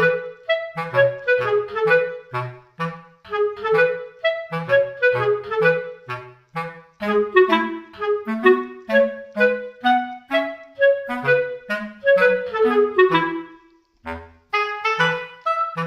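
Background music: an upbeat instrumental tune of short, separate notes over a regular bass line, breaking off briefly about fourteen seconds in and then starting again.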